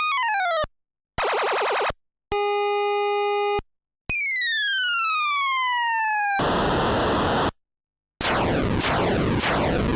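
Manutronix home-built 1-bit sound effect generator and dub siren playing a string of short electronic effects, each cut off by a brief silence. In turn come a siren-like wail, a buzzy tone, a steady beep, a long falling zap, a burst of noise, and then falling noisy sweeps repeating about every half second.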